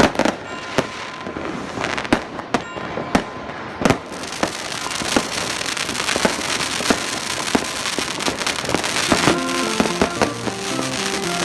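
Fireworks going off: separate sharp bangs for the first few seconds, then a dense crackling barrage thick with bangs. Background music comes back in near the end.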